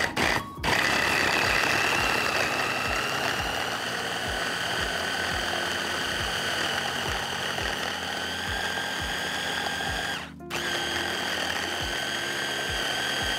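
Cuisinart hand blender's motor running on its chopper bowl, blending frozen shortcake, milk and vanilla ice cream into a thick drink. It gives a steady whine, cuts out briefly about half a second in, then again for a moment around ten seconds in, and starts up again each time.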